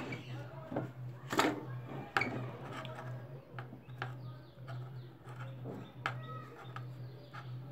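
Scattered light clicks and knocks of a router's circuit board being handled and turned in the hands on a workbench, the sharpest two about a second and a half and two seconds in, over a steady low hum.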